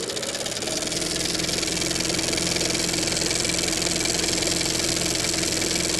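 Steady electrical hum under a layer of static hiss: the sound effect of an old television test card.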